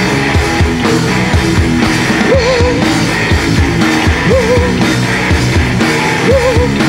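Rock band playing live: electric guitar, bass guitar and drum kit, with a vocalist singing into a microphone. A short wavering melodic figure comes back about every two seconds over a steady drumbeat.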